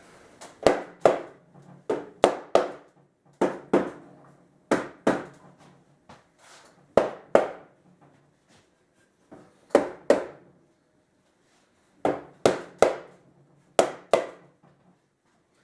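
Mallet knocking the softwood pieces of a cable-assembled chair seat together, in quick pairs and threes of sharp strikes with short pauses between. This seats the pieces tightly once the cable becomes hard to tension by hand.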